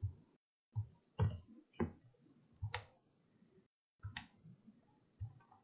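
Computer mouse button clicking about eight times at an irregular pace, some clicks coming in quick pairs.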